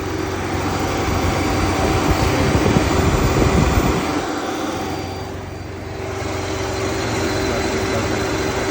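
Engine of a 2013 Nissan Altima idling with the newly replaced AC compressor engaged and working, a steady running hum with a low rumble that drops away about four seconds in.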